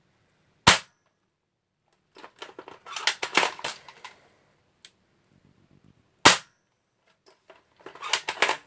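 Two sharp shots from a BB pistol, about five and a half seconds apart, with quick bursts of clicking and rattling between and after them.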